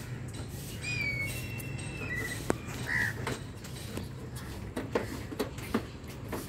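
Birds calling in the trees: a few short calls and whistled notes over a steady low hum, with several light clicks and knocks about two-thirds of the way through.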